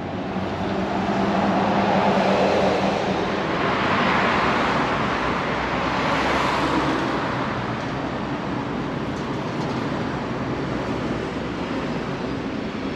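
City street traffic: cars driving past, two passing close and swelling in the first few seconds, then a steady traffic hum.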